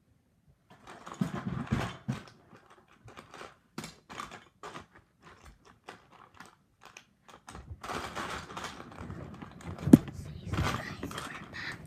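Irregular clicks, knocks and rustling handling noises, with a single sharp knock about ten seconds in.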